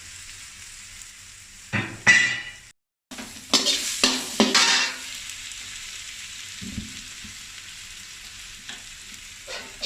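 Garlic and chili sizzling in melted salted butter in a frying pan, a steady hiss, with loud stirring strokes in the pan about two seconds in and again a few seconds later.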